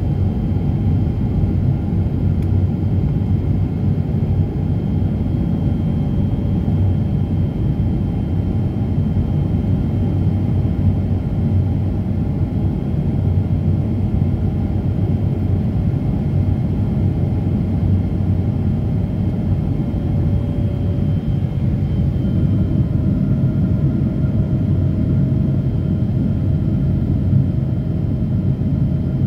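Airliner cabin noise in flight: the turbofan engines and airflow give a steady low rumble, with faint steady hums above it, one of which steps up slightly in pitch about two-thirds of the way through.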